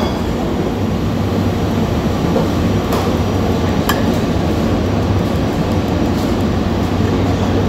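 Steady low background rumble and hum with a few faint light clicks, about three and four seconds in, as ground coffee is tipped from a small metal cup into a paper-lined pour-over dripper.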